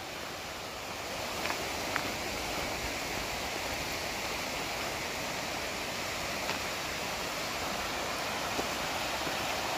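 A river rushing over rocks: a steady, even rush of water, with a few faint clicks.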